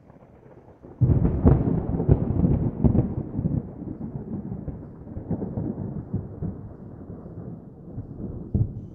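Logo intro sound effect: a sudden boom about a second in, then a low thunder-like rumble with crackles that slowly fades over the following seconds.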